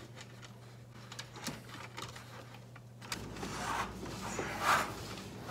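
A power drill driving screws into the back end of a drawer slide. A motor hum sets in about three seconds in, with a couple of short rasps.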